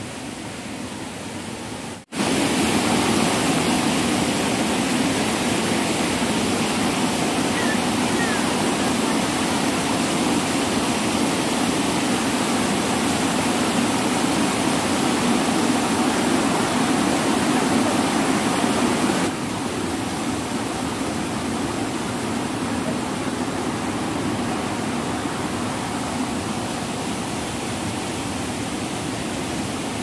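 Waterfall rushing in a steady roar of water noise. The sound cuts out for an instant about two seconds in, comes back louder, and drops a little about two-thirds of the way through.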